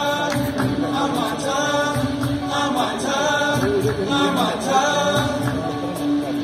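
A mixed choir of men and women singing a song together, with a violin accompanying them.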